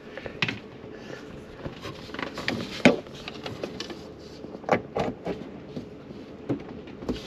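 Scattered clicks and knocks of hands working under a kitchen sink, with the sharpest knock about three seconds in.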